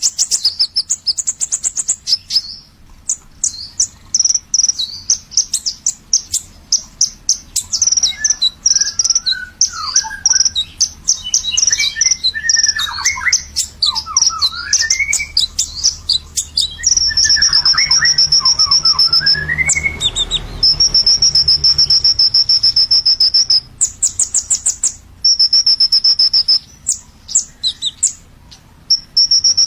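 A kolibri ninja sunbird singing: fast, high twittering chirps, with some sweeping down-slurred notes in the middle and several long, level, high buzzing trills in the second half.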